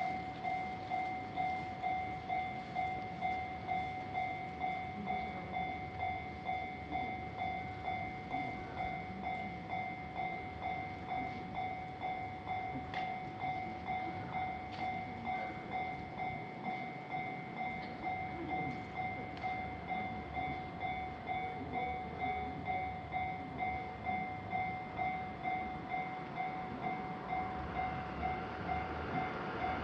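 Japanese railway level crossing warning bell ringing: an electronic two-tone ding repeating evenly, about three strokes every two seconds. A rushing noise builds under it near the end.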